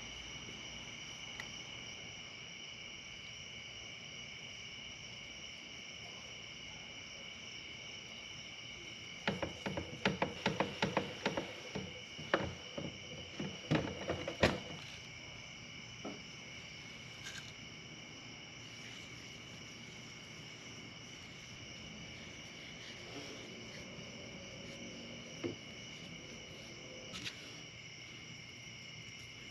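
Night insects chirring steadily as a high, even drone. About nine seconds in, a quick run of plastic clicks and knocks lasts several seconds as PVC pipe fittings are handled and pushed together. A few single knocks follow.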